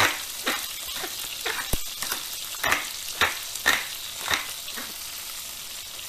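Wooden pepper mill grinding black pepper in short twists, just under two a second, over the steady sizzle of cherry tomatoes and garlic frying in olive oil. The grinding stops near the end, leaving the sizzle.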